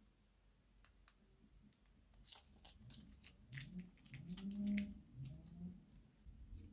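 Slime squeezed out of a plastic piping bag: sticky crackles and pops from about two seconds in, with short low squelches that bend in pitch, loudest just past the middle.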